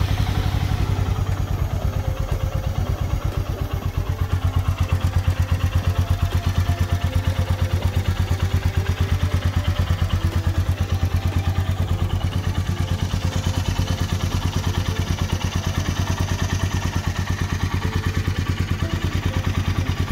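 Royal Enfield Meteor 350's single-cylinder engine idling steadily with an even pulsing beat, just after starting. It is running to circulate fresh oil after an oil and filter change.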